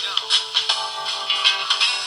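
Polyphonic Nokia ringtone playing through the small speaker of a Samsung SGH-A157 flip phone: a synthesized tune with held chord notes that change about every half second over a regular drum beat, thin with little bass.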